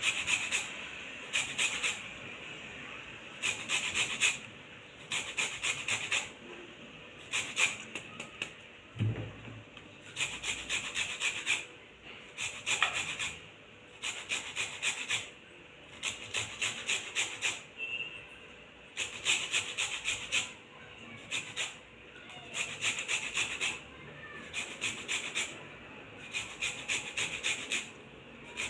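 Citrus peel being rubbed on a hand grater to zest it: short bursts of quick rasping strokes, each burst lasting about a second, repeated again and again with brief pauses. There is one dull thump about nine seconds in.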